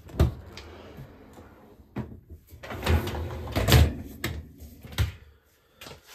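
Bosch Serie 4 dishwasher door unlatched and opened with a clunk, then the lower wire basket rattling and knocking as it is slid out and lifted clear of the stainless steel tub, loudest about three to four seconds in.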